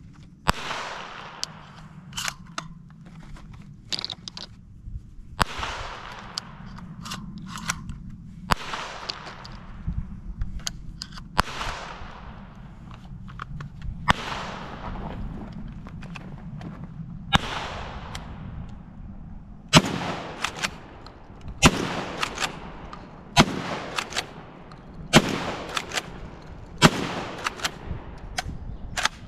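Loading clicks and scattered echoing bangs, then, about two-thirds of the way in, a Benelli SuperNova Tactical 12-gauge pump-action shotgun firing a steady string of loud shots, roughly one every two seconds.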